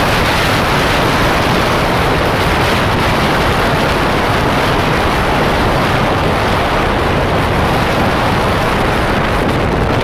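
Fierce mountain-summit wind blasting across the microphone: a loud, steady rush of noise that never lets up.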